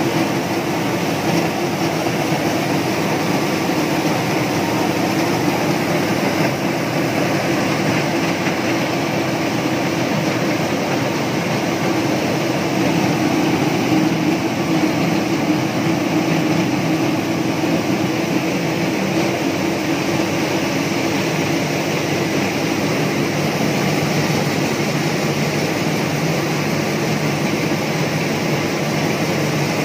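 Small electric-powered single-stage rice mill running steadily: its milling machines make a loud, even drone with a constant low hum.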